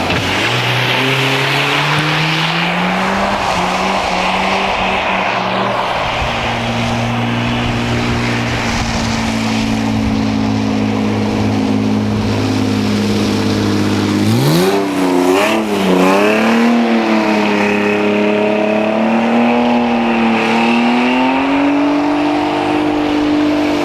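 The BMW E36 328i-based drift kart's straight-six engine, held at steady revs for a long stretch. About two-thirds of the way in, the revs rise and fall sharply several times, then settle and hold at a higher, steady pitch.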